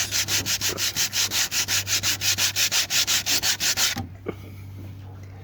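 Sandpaper rubbed by hand in rapid back-and-forth strokes over the fiberglass and gelcoat of a boat hull. It stops suddenly about four seconds in.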